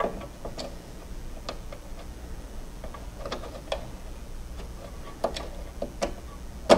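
Irregular light clicks and ticks of a short stubby Phillips screwdriver backing screws out of a cooling-fan bracket, with a sharper click near the end, over a steady low hum.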